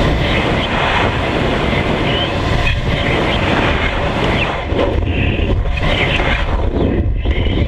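Wind rushing and buffeting over an onboard camera on a high-power rocket in flight: a loud, continuous rumble that flutters unevenly.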